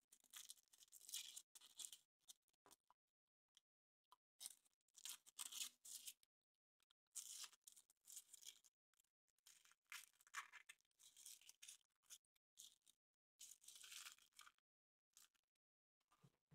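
Thin foil wrapper of a Kinder Surprise chocolate egg being torn open and crinkled by hand, in about six short spells of quiet crackling with brief pauses between them.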